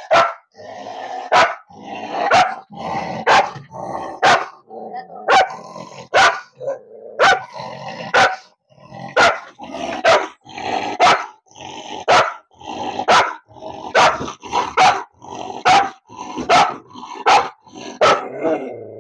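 Native Kerala (nadan) dog barking about once a second, growling between barks, teeth bared: the defensive aggression of a dog that has bitten several people, directed at someone at its kennel.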